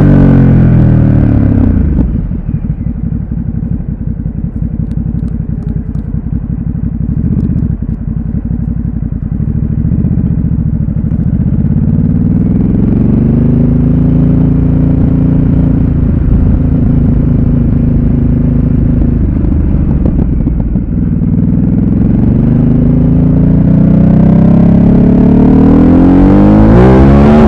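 Ducati Supersport S's 937 cc L-twin engine: revs fall over the first two seconds to a low, uneven pulsing for several seconds. It then climbs from about eleven seconds in, holds, dips about twenty-one seconds in, and climbs again near the end.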